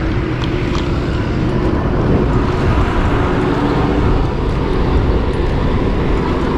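Steady rumble of a moving vehicle with road and traffic noise.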